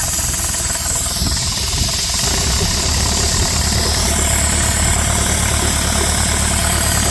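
Dake square-piston steam engine running on compressed air, its exhaust beats coming fast and even over a steady hiss of air, with a chugging sound like a Model T. A low steady hum grows stronger about two and a half seconds in.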